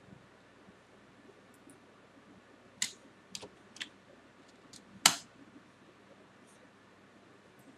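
A handful of short, sharp clicks from a computer keyboard and mouse, scattered over a couple of seconds, the loudest about five seconds in, over a faint steady hiss.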